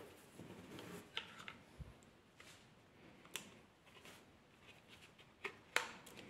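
Faint handling noise of a hard disk drive being slid into a plastic external enclosure and pushed onto its connector: light rubbing with a few sharp clicks, the sharpest near the end.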